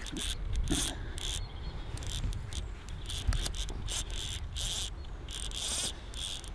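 Fly reel's click-and-pawl check buzzing as a hooked trout runs and pulls line off the spool, in about a dozen short, irregular spurts.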